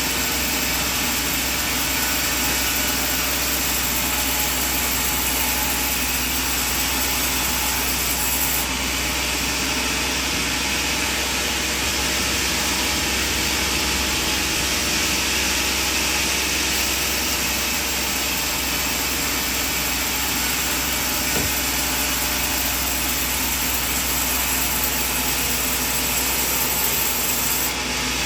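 Sawmill bandsaw and its engine running steadily, sawing through a coconut log.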